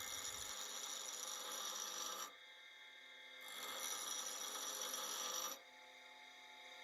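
Twist drill bit's point being ground against an abrasive to even up its cutting lips: two rasping passes of about two seconds each, with a short pause between.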